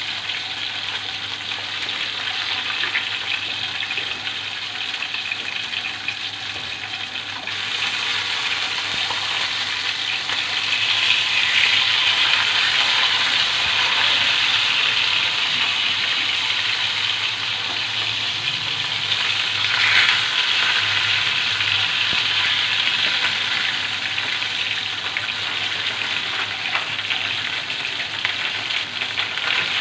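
Rohu fish pieces frying in hot oil in a pan, a steady sizzle that grows louder about seven and a half seconds in.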